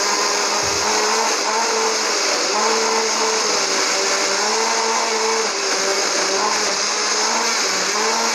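Countertop electric blender running at full speed, crushing ice cubes and mango pieces in water. The steady motor hum wavers slightly up and down in pitch every second or two.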